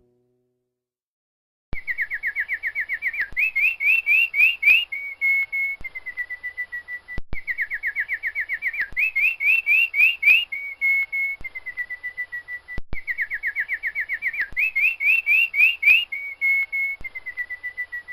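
Domestic canary singing, starting about two seconds in. Each song phrase is a rapid trill of falling notes, then quicker rising notes, then two held whistled notes. The same phrase repeats three times.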